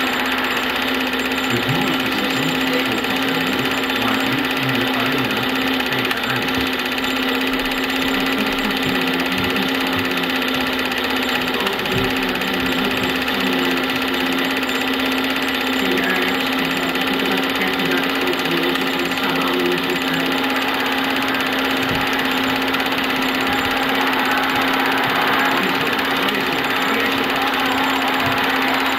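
Film projector running: a steady mechanical whir and clatter with a constant hum, unchanging in level.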